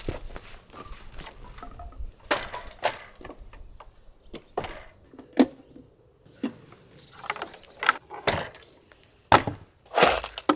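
Irregular wooden knocks and clatter, with several louder knocks near the end: wood and tools being handled and set down.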